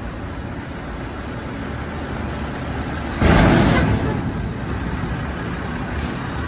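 Front-load garbage truck running steadily while its hydraulic lift arms lower an emptied dumpster back to the ground. About three seconds in there is a sudden loud burst of noise that fades within a second as the container comes down.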